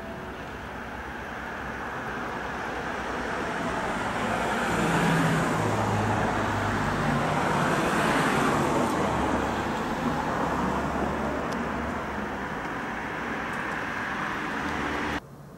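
A vehicle passing: a broad rumble that builds over about five seconds, holds, then slowly fades, and cuts off abruptly near the end.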